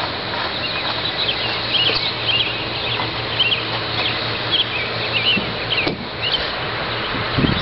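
Small birds chirping in short, repeated calls over a steady hiss of outdoor noise, with a dull low thump near the end.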